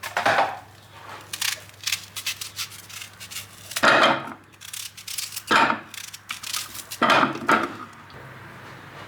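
Kitchen handling noises: a handful of short scrapes and knocks as objects are moved and set down on a work surface.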